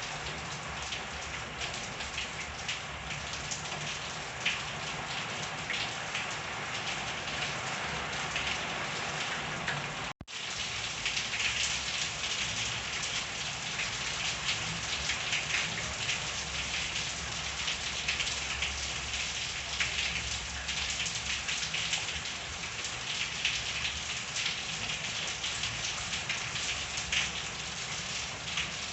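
Steady rain falling, with many individual drops pattering and ticking on surfaces. The sound cuts out for an instant about ten seconds in, then returns a little louder.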